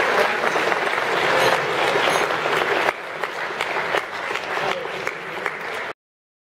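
Audience applauding after a toast. The applause is loud for about three seconds, then drops off quieter and cuts off abruptly near the end.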